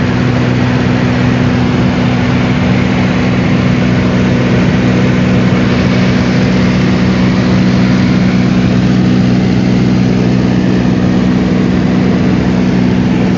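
Cessna 206 single-engine piston engine and propeller running with a steady, even drone and a few strong low tones.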